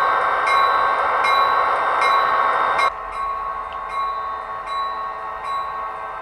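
H0 scale model train running along the track, heard from a camera riding on the train: a steady mechanical hum with regular clicks a bit more than once a second. About three seconds in the sound drops suddenly to a quieter level and carries on.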